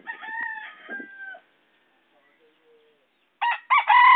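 Rooster crowing twice: one crow about a second and a half long at the start, held and then dropping slightly, and a second, louder crow beginning near the end.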